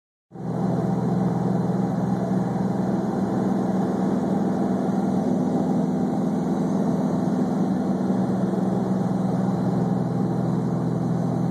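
Steady drone of a twin-engine propeller airplane's engine and propeller in cruise, heard from inside the cabin: an even, low hum.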